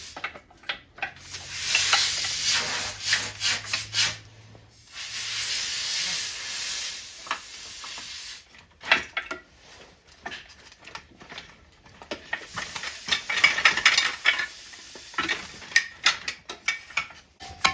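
Tools and metal parts of a Mercury 4 hp outboard engine being worked on during disassembly: long scraping and rubbing stretches three times, with sharp clicks and knocks of parts and tools in between.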